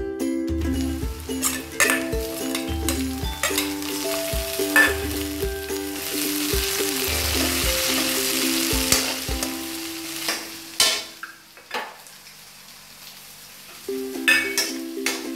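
Chopped onions sizzling as they fry in oil in a kadai, with a metal spoon stirring and scraping against the pan. The sizzle is loudest about halfway through and dies down about two-thirds of the way in.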